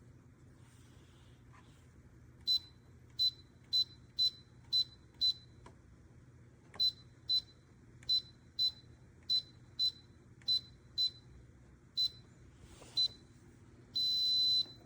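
Electronic beeper of an electric under-desk elliptical machine giving about sixteen short, high beeps, often in pairs, as its buttons are pressed, then one longer beep near the end. Under the beeps runs a low steady hum.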